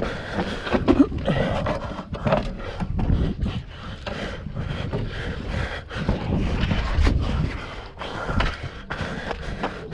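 A racer's footsteps on trail and heavy breathing, picked up close by a chest-mounted camera, with irregular thumps over a low rumble.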